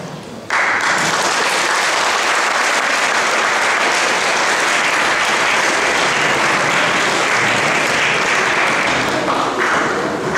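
Audience applauding, starting suddenly about half a second in and easing off near the end.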